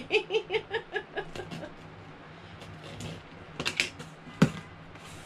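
A short burst of laughter, a quick run of 'ha' pulses, then a cardboard shipping box being opened by hand: the flaps crackle and rustle, with one sharp snap about four and a half seconds in.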